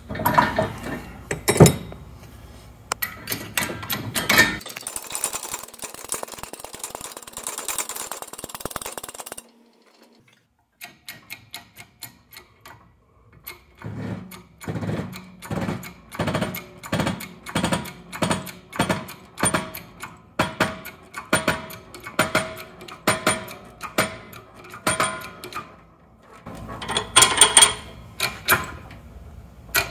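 Hand-pumped hydraulic shop press being worked in steady strokes, about one and a half a second, pressing a new bearing onto a transfer case gear shaft until it seats. Scattered metal clanks come at the start, and a short burst of louder clatter comes near the end.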